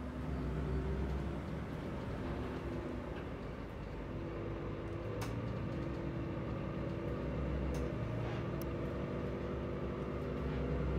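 City bus engine running steadily, a low hum with slowly shifting pitch, with a few sharp clicks about five and eight seconds in.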